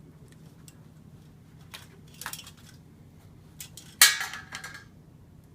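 Scattered small metallic clicks and clinks of hand tools and metal fixture parts being handled, with one louder ringing metallic clatter about four seconds in.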